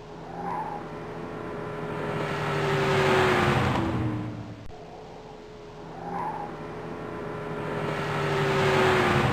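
A car drives past twice. Each time the engine and tyre noise builds to a peak, and the engine note drops in pitch as it goes by.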